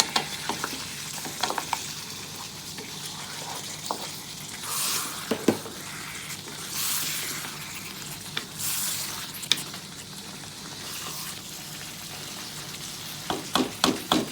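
Chicken masala sizzling in a pan with a steady hiss that swells louder three times midway. Sharp clicks and scrapes of a utensil stirring the pan come near the start and again near the end.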